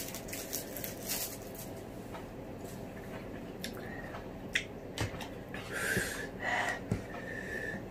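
Light clicks and rustles of drinking straws being unwrapped and pushed into small drink cartons, with sniffs and hissing breaths from a mouth burning with chilli, a few of them louder in the second half.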